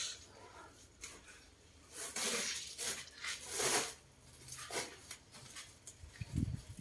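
Packing noises: a woven plastic sack rustling and scraping in several short bursts as it is handled and tied, with a dull thump near the end.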